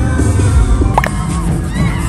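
Loud show music with a heavy low beat, and high whoops and shouts over it. A sharp rising cry comes about a second in.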